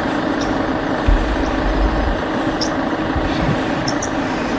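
A car engine idling steadily, with a few short, high bird chirps now and then.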